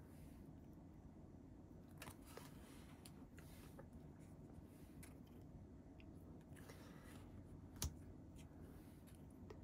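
Near silence with faint taps and rustles of photocards being handled and laid down on a table, and one sharper click about eight seconds in.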